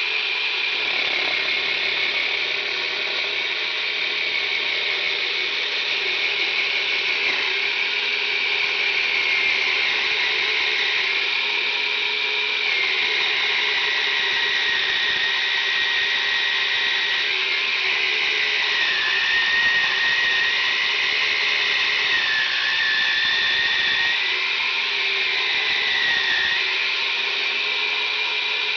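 Yonanas frozen-dessert maker running, its electric motor whining steadily as frozen strawberries, blueberries and banana are forced through the spinning blade; the whine's pitch dips and wobbles a little now and then as the fruit loads the motor.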